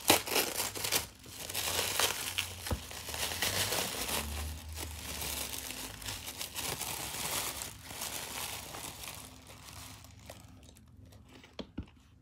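Wrapping crinkling as it is handled and pulled off a packed item. The crinkling is loudest at the start, goes on steadily, and dies away about two seconds before the end, leaving a few light clicks.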